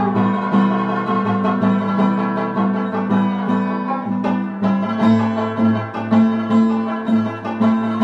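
Background music led by a plucked string instrument, picking quick repeated notes over sustained low notes.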